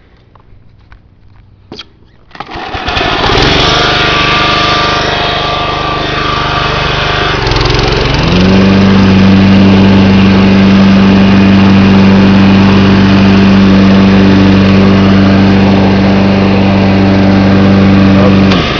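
John Deere 14SE walk-behind mower's small gasoline engine, started off its battery, catching about two seconds in after a few light clicks and running. Around eight seconds in it rises to a higher speed, which it holds steadily until near the end.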